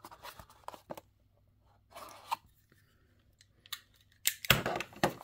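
Knife cutting into a small cardboard blind box: short scrapes and clicks, with a louder stretch of cardboard noise near the end.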